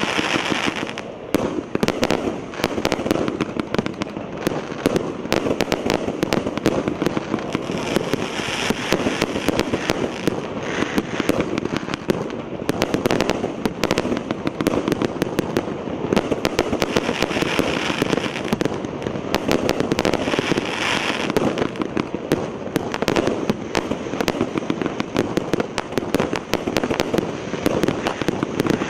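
A 1-inch, 250-shot firework cake firing shot after shot without a break. Launch bangs and star bursts run together with a dense crackle from the crackling-glitter effects.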